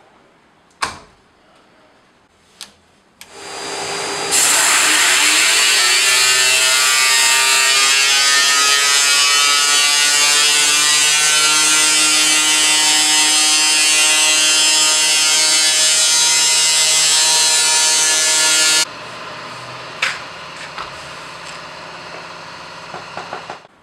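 Pleated cartridge-filter cleaning cabinet running a cleaning cycle: after a door latch clicks shut, the machine starts about three seconds in and rises into a loud, steady rush with several whining tones over it. Around nineteen seconds in it drops suddenly to a lower hum, with a few clicks, and stops just before the end.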